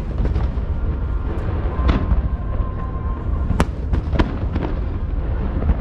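Fireworks going off: sharp bangs about two, three and a half and four seconds in, with smaller crackles between them, over a continuous low rumble.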